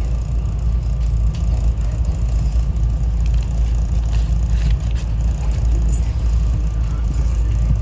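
SEPTA Regional Rail train running, heard from inside the car: a steady low rumble with a few light clicks and rattles.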